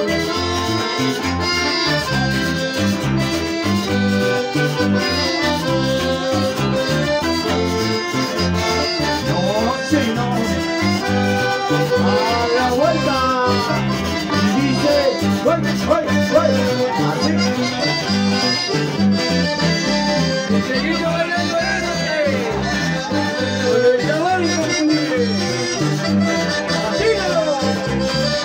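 Live band playing an instrumental dance tune: piano accordion carrying the melody over strummed acoustic guitar and bass with a steady beat.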